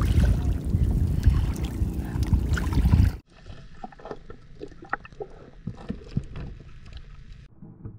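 Water sloshing and splashing under a low rumble. About three seconds in it cuts off abruptly to a much quieter stretch of small scattered splashes and knocks.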